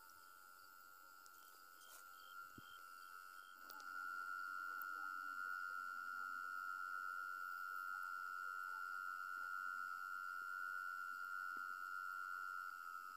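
A continuous, steady, high-pitched insect trill, getting louder about four seconds in.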